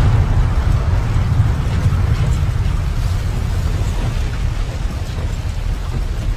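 Low rumbling roar of a crashed jet airliner skidding on its belly through desert sand, slowly dying away.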